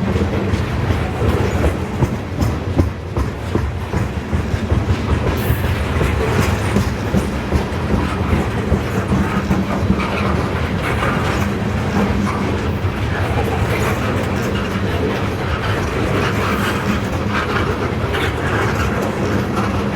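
CSX freight train's cars rolling past, their wheels knocking over the rail joints in a dense, uneven clatter over a steady low hum.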